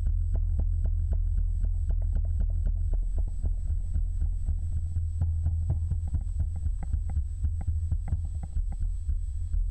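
Rapid, irregular clicks and knocks, several a second, over a steady low rumble, picked up by the microphone.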